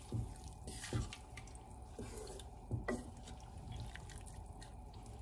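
A wooden spoon stirring chopped cucumbers, onions and peppers in vinegar and water in a large aluminium pot: wet sloshing, with a few irregular knocks of the spoon against the pot.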